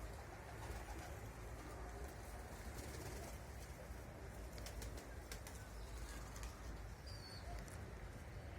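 Domestic pigeons cooing faintly, over a low rumble of wind on the microphone. A brief high chirp comes about seven seconds in.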